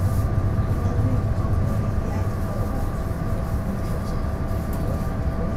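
Taiwan Railways DR3000 diesel multiple unit running along the line: a steady low rumble with a constant whine over it and faint scattered ticks.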